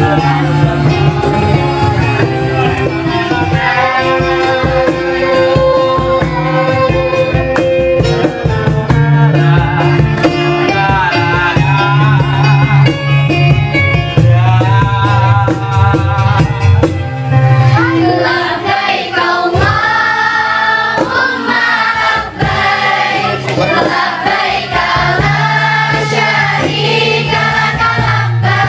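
A woman sings a sholawat song into a microphone over electronic keyboard accompaniment, with other voices singing along.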